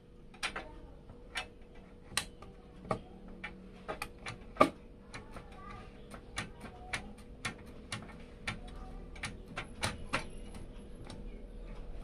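Irregular light clicks and taps of a graphics card being handled and fitted into a PC case, with one sharper knock about four and a half seconds in.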